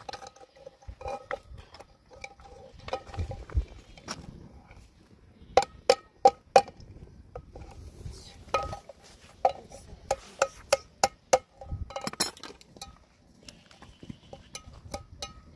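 Metal tapping and clinking on a tin can as it is worked open with a metal tool: irregular sharp, ringing strikes, the loudest a quick run of four or five about six seconds in.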